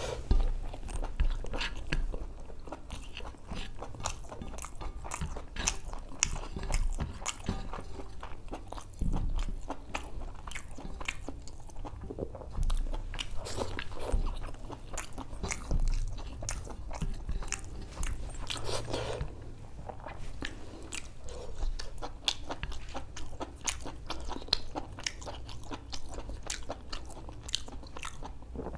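Close-miked chewing of spicy mutton boti (goat intestine) and khichdi: wet mouth sounds with many short clicks and smacks.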